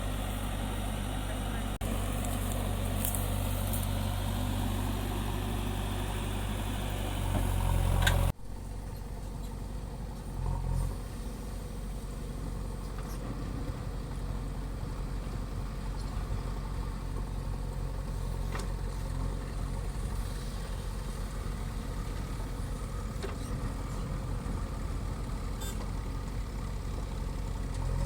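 Diesel engines of heavy machinery running steadily with a low drone. About eight seconds in, the sound cuts off sharply and comes back quieter, with the engine still running.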